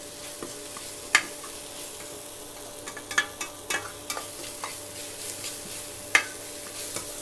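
A spatula stirring and scraping onion-tomato masala in a stainless steel kadai over a soft, steady frying sizzle. Sharp scrapes and taps against the pan come about a second in, several between three and four seconds, and one just past six seconds.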